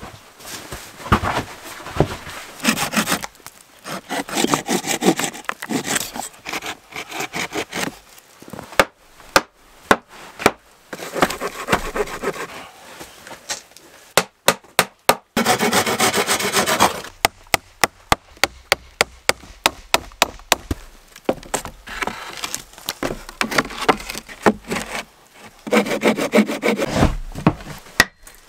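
Wooden pallet boards being dragged, shifted and knocked into place on a dirt floor: a long run of sharp wooden knocks and scraping rubs, with footsteps on wooden boards near the end.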